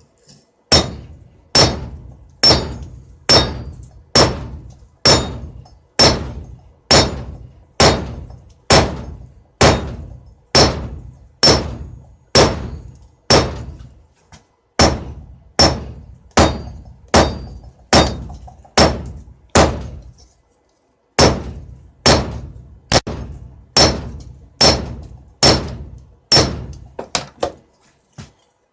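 Hand hammer striking steel on an anvil while forging a knife blade: a steady run of ringing blows, a little over one a second, with a short break about two-thirds of the way through and a few lighter blows near the end.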